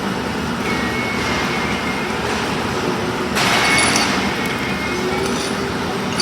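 Steady machinery running noise, with a brief louder hissing burst about three and a half seconds in.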